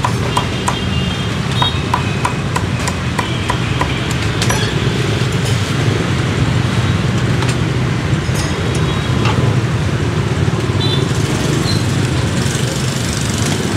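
Steel cleaver chopping roast pork on a thick wooden chopping block: a quick run of sharp chops over the first few seconds, then only a few scattered knocks. Underneath runs a steady low engine rumble.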